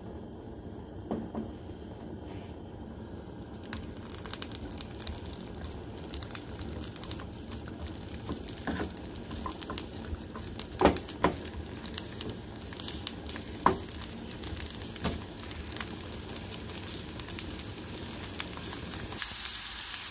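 Asparagus pieces and minced garlic sizzling in oil in a non-stick frying pan, stirred with a wooden spatula. The sizzle grows louder about four seconds in, and there are a few sharp knocks around the middle.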